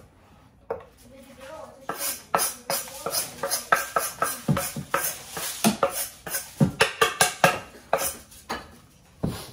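Kitchen clatter: a knife tapping and scraping on a wooden cutting board and dishes clinking at the sink. It is a quick, irregular run of knocks and clinks that starts about two seconds in.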